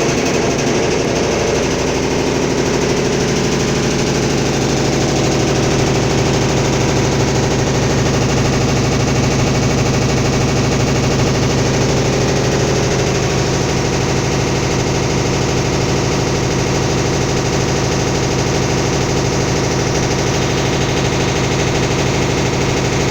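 Brastemp 11 kg washing machine running with a loud steady hum and a fast, even rattling knock, the excessive noise it makes during agitation while the water drains out. The hum shifts slightly about halfway through.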